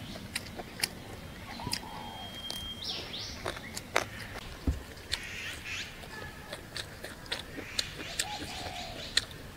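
Close-up chewing and gnawing on a fried pork spare rib: a string of short, sharp clicks and smacks from the mouth and the meat on the bone. Birds chirp and call in the background now and then.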